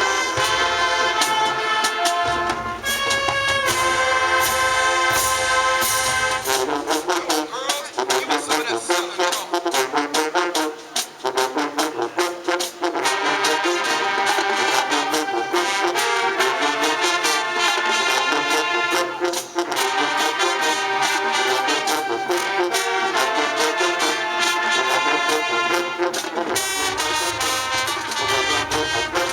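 High school marching band playing, brass horns over drums. About seven seconds in the low bass drops away, leaving higher horns and quick drum hits, and the full low end comes back near the end.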